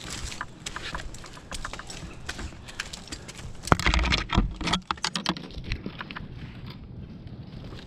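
A tree climber moving on the trunk: a steady patter of small clicks, knocks and scrapes from gear and hands against bark, with a louder bout of knocks and bumping about halfway through.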